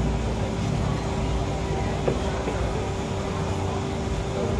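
Steady low hum and background noise of a busy open-air food court, with one sharp knock about two seconds in.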